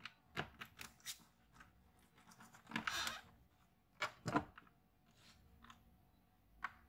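Scattered light clicks and short scraping, rustling sounds of a laptop being handled by hand, with the louder scrapes about three and four seconds in.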